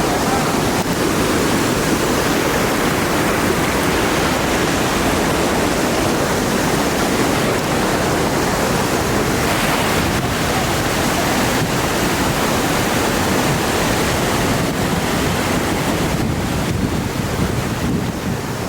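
Steady rush of a small waterfall heard up close, with wind buffeting the microphone.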